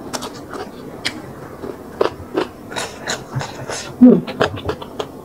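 Close-miked mouth sounds of eating rice noodles: chewing, smacking and slurping in short scattered clicks. About four seconds in comes a short, louder sound that falls in pitch.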